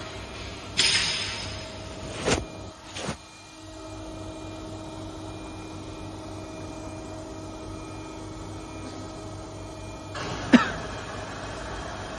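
Steady hum of workshop machinery with a faint tone, broken by a brief hiss about a second in, two sharp clicks around two and three seconds in, and a louder click near the end as a metal measuring instrument is handled against a machined steel shaft.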